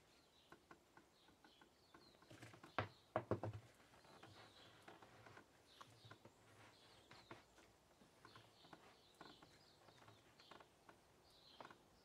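Near silence, with a short cluster of faint knocks and taps about three seconds in and a few light ticks after: a plywood cover being pushed and settled into a plastic washing machine tub.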